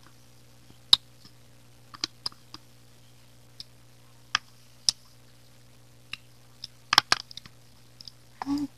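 Eating sounds: scattered sharp clicks and lip smacks as a small spoon scrapes melted ice cream from a paper cup and is licked clean, with a longer, louder smack or slurp near the end.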